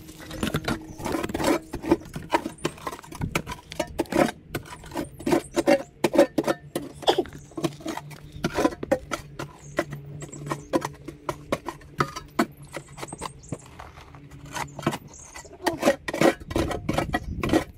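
Hand digging in stony soil with a spade: a quick, irregular run of scrapes and knocks as the blade cuts and scrapes at earth and stones. A faint steady low hum runs under it through the middle part.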